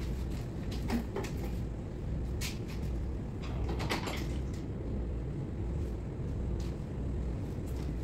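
Scattered clicks and light plastic knocks from hands working at the connection area under a Fronius solar inverter, with a small cluster of them about halfway through, over a steady low hum.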